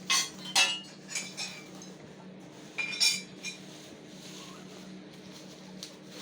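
Metal frame pipes and parts of a chainsaw frame kit clinking and knocking together as they are handled and fitted, a few sharp strikes with short ringing, the loudest near the start and about three seconds in. A steady low hum lies underneath.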